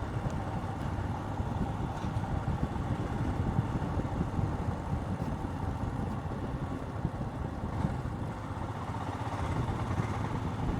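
Royal Enfield Himalayan's single-cylinder engine running as the motorcycle is ridden, a steady low drone that eases off slightly about seven seconds in.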